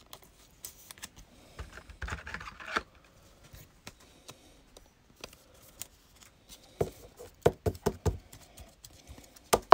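A football trading card being slid into a plastic sleeve and a rigid plastic toploader: soft plastic scraping about two seconds in, then a run of light, sharp taps and clicks of plastic on the tabletop in the last few seconds.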